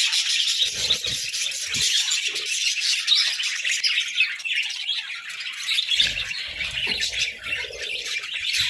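Several budgerigars chirping and chattering without pause, with squawks mixed in, plus a few low bumps about a second in and again near the end.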